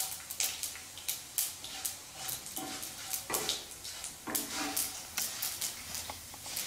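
Chana and urad dal sizzling and crackling in hot ghee in a nonstick kadai as they brown for a tempering, with a spatula stirring through the pan. The crackles come irregularly, several a second.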